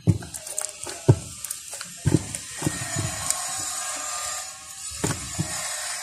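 Construction work in the shop below: a series of knocks and thuds, with a power drill running for about two and a half seconds in the middle.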